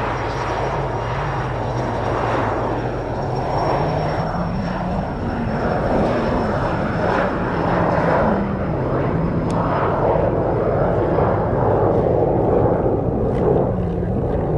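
Twin-engine business jet's turbofans running as it rolls down the runway: a continuous engine rush with a thin, high whine that sinks slowly in pitch. Heavy wind noise buffets the microphone.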